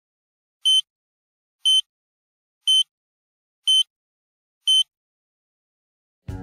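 Five short, high electronic countdown beeps, one a second, with silence between them. Music starts right at the end.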